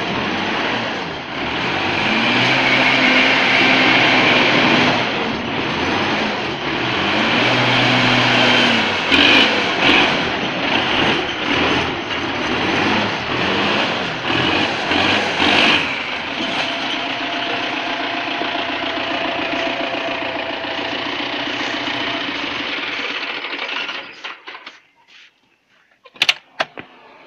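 Wheeled farm tractor's engine under load, with a loud, dense running sound. It revs up twice in the first ten seconds, then runs more evenly. Near the end the engine sound falls away sharply, and a few sharp clicks follow.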